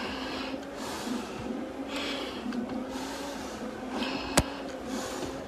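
Hard breathing through a firefighter's SCBA face mask, a hiss of air about once a second, from the exertion of climbing stairs. A single sharp tap about four seconds in as a finger knocks against the phone.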